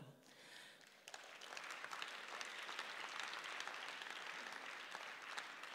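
Audience applauding, faint, many hands clapping together; it starts about a second in and dies away near the end.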